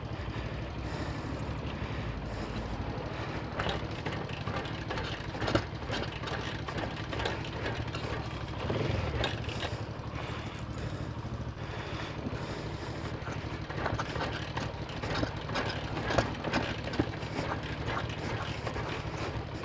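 A YX 160cc single-cylinder four-stroke pit bike engine idles steadily on its first run since a new cylinder head was fitted. Scattered small clicks and knocks sound over it.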